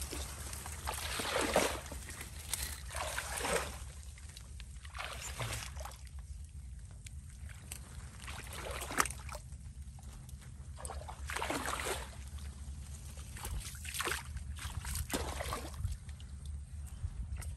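Footsteps squelching and sloshing through soft mud and shallow water, one wet step every second or two.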